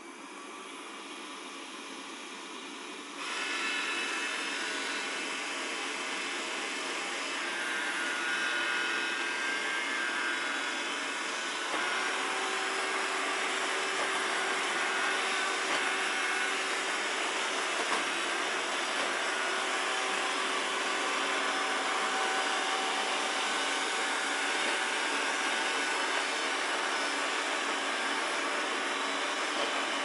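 First-generation Xiaomi Mi Robot Vacuum running its suction fan in Quiet mode: a steady whir with a faint whine in it, which a sound meter puts near 68 dB. It grows louder in steps about three seconds in and again around twelve seconds in.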